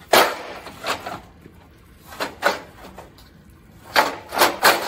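A bundle of long hollow aluminium profiles being shifted about, the lengths knocking and clattering against each other in short clusters of sharp knocks. The last knock leaves a brief metallic ring.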